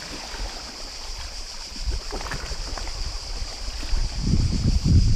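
Small sea waves lapping and washing against shoreline rocks, under a steady high hiss. From about four seconds in, wind buffets the microphone with a loud low rumble.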